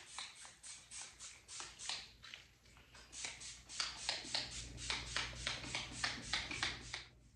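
Hand-held finger-pump spray bottle squirted over and over onto hair to wet it, a fast run of short sprays about four a second that stops about seven seconds in.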